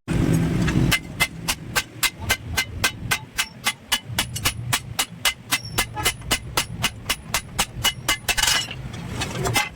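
Hammer striking metal in a rapid, even rhythm of about four blows a second, as when reshaping a steel blade. It opens with a low rumble and ends with a short hiss.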